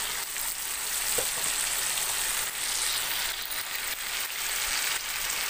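Chicken pieces frying in hot oil in a metal wok: a steady sizzle.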